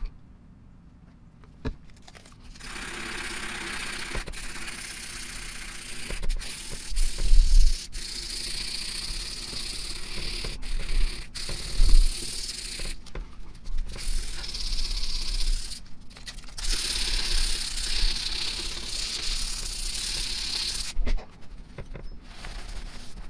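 Hand-scrubbing of a metal air-motor end plate with a rag: a steady rubbing hiss that starts about two and a half seconds in, with short breaks about thirteen and sixteen seconds in, stopping about twenty-one seconds in. A few dull knocks as the plate is handled.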